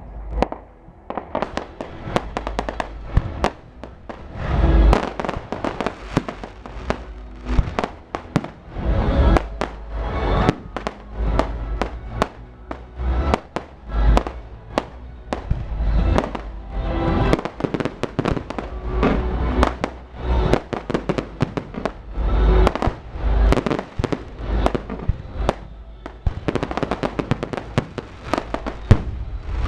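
Fireworks going off in a dense, continuous barrage: rapid crackling pops and bangs mixed with deeper booms every few seconds.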